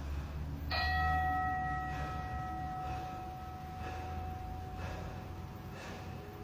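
A single bell-like metallic ring struck about a second in, fading slowly over several seconds. Behind it, short hard breaths come about once a second from someone doing crunches.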